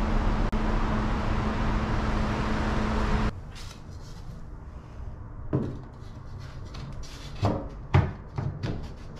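A steady mechanical hum, like a running fan, cuts off suddenly about a third of the way in. Then a few knocks and taps as a cut strip of cement board is handled and test-fitted into the gap in the wall beside the bathtub, with a cluster of three or four sharper knocks near the end.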